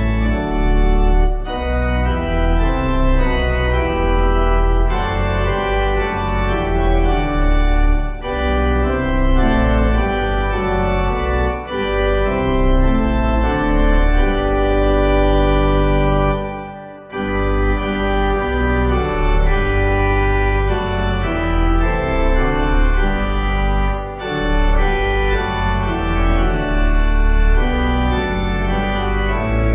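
Organ playing a hymn tune in full held chords, with a short pause about halfway through.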